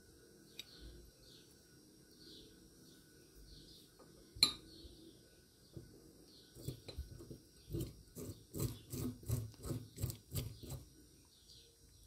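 Metal clinks and knocks of a homemade pulley puller being fitted over a washing-machine motor's pulley and its threaded rod worked by hand: one sharp clink about four seconds in, then a quick run of knocks, about three a second, in the second half. Birds chirp faintly in the background.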